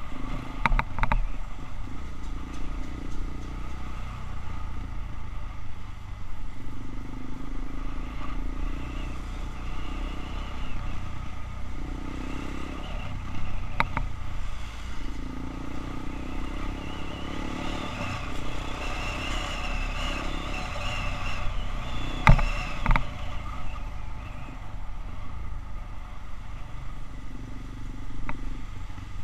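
Motorcycle engine running and rising and falling with speed in traffic, heard with wind and road rumble through a handlebar-mounted action camera. A few sharp knocks from bumps, the loudest about three-quarters of the way through.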